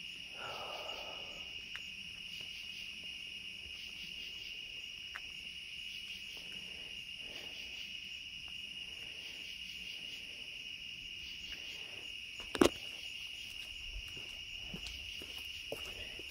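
Steady high-pitched trilling of night insects. A single sharp click comes about twelve and a half seconds in.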